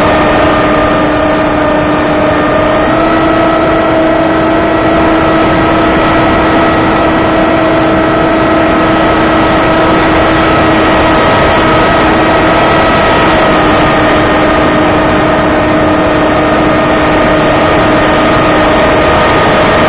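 Radio-controlled model plane's motor and propeller running steadily, heard from the onboard camera with a heavy rush of wind noise. Its pitch steps up at the start and again about three seconds in, then eases down slightly around the middle.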